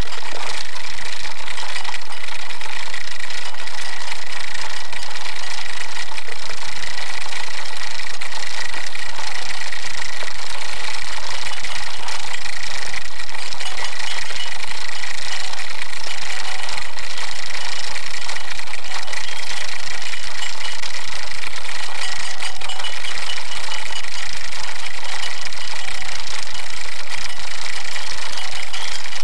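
Holmes pedestal fan running: a loud, steady rushing whir of the motor and blades, with an uneven low rumble under it.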